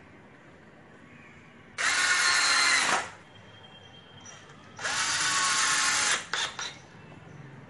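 Hand-held electric drill run in two bursts of a little over a second each, pressed against a door frame, followed by a few short clicks.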